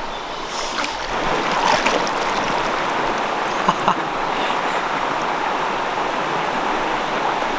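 Steady rushing of a flowing stream, picking up slightly after about a second, with a few brief ticks over it.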